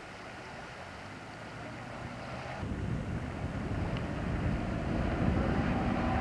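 Wind buffeting the camcorder microphone, growing louder about two and a half seconds in, with a distant speedboat's engine droning faintly underneath near the end.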